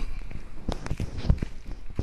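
Footsteps: a person walking, several steps about a third of a second apart.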